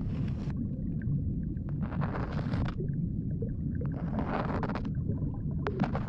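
Ear-cleaning ASMR at a microphone's ear: a continuous low rumble like water rushing through a drain pipe, under four bursts of scratchy scraping from a tool working at the ear.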